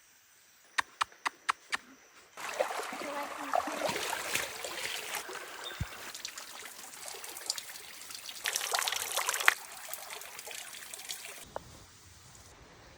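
A quick run of about six sharp clicks, then water running and splashing, as at a stream or small cascade, which stops abruptly near the end.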